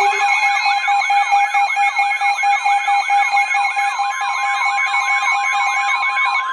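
Weather radio alarm: an electronic siren sweeping up and down about three times a second, over a steady alert tone.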